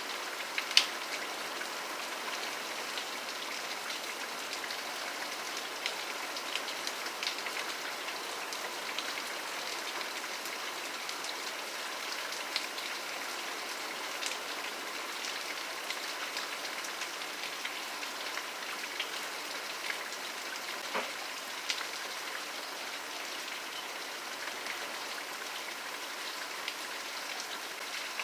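Steady rain falling, a hiss full of small close drop ticks, with one sharper drop hit about a second in.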